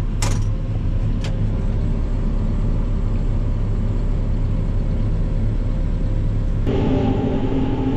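Tractor and forage chopper running steadily, a low engine drone, with two sharp clicks near the start. Near the end the sound changes abruptly to a different machine drone with higher tones.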